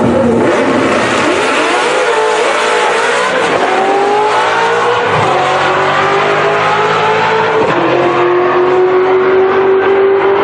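Whipple-supercharged 2003 Ford Mustang SVT Cobra with a manual gearbox making a full-throttle quarter-mile drag pass, its 4.6-litre modular V8 climbing in pitch through each gear and dropping back at every shift.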